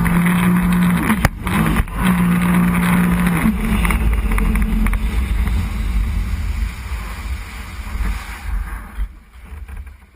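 Sea-Doo personal watercraft engine running at a steady note with the rush of wind and water, broken by two sharp knocks between one and two seconds in. After about three and a half seconds the engine note fades away and the water rush dies down as the craft slows.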